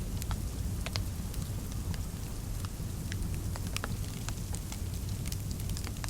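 Fireplace crackling: irregular sharp pops and snaps over a steady low rumble.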